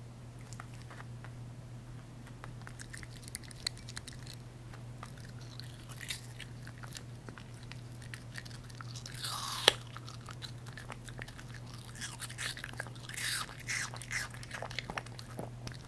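A poodle eating apple pieces from a bowl close to the microphone: small scattered mouth clicks at first, then crisp crunching bites, the loudest about nine and a half seconds in, and a run of crunchy chewing near the end.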